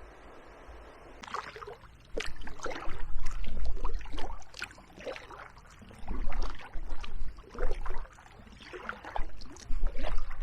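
Kayak paddle strokes in the water: several irregular splashes and drips from the paddle blades, over a steady low rumble.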